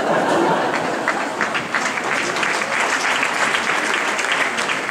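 Large audience applauding: many hands clapping in a dense, even stream that swells in at the start and holds steady.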